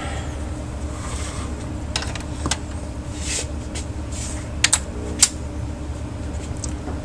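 A few short clicks and rustles from hands working on the equipment, over a steady low electrical hum. The loudest is a quick double click about two-thirds of the way in, with a single click just after it.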